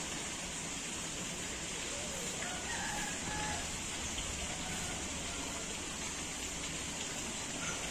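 Steady outdoor noise of moving river water, with a faint rooster crowing about two and a half seconds in.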